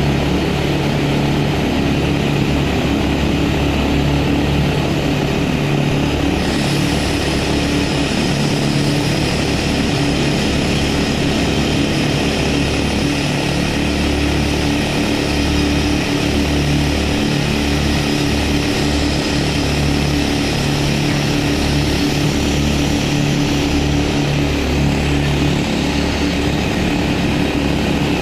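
Several pneumatic jack hammer rock drills running at once, a continuous hammering racket, as blast holes about 3 m deep are drilled into a tunnel face. A steady low hum runs underneath.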